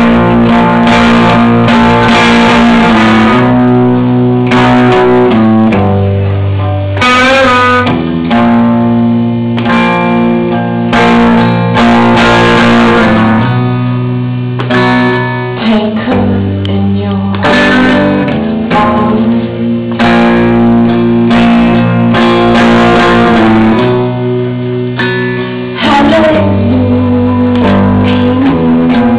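Electric guitar played live through an amplifier: loud, sustained chords that change every second or two.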